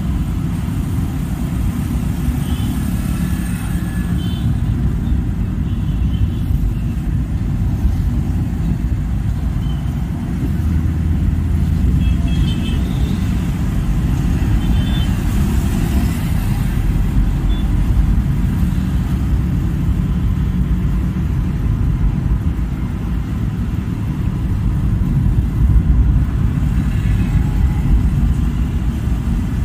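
Steady low rumble of road traffic and vehicle engines, with a few faint, short high tones now and then in the first half.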